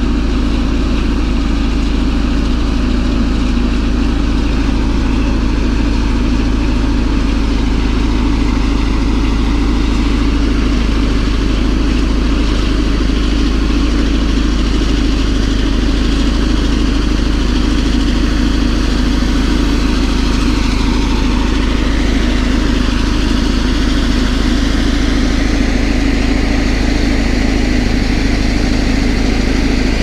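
Caterpillar D11 bulldozer's diesel engine running steadily under load as the dozer pushes dirt with its blade.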